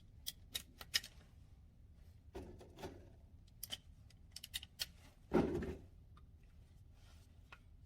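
Scattered light clicks and rustling handling noises, with one louder rustle about five and a half seconds in.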